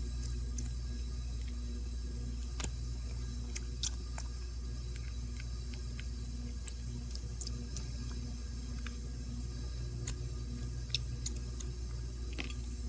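Small, sharp metal clicks and ticks, scattered irregularly, from a precision screwdriver working the screws out of a Casio watch's metal case back, over a steady low hum.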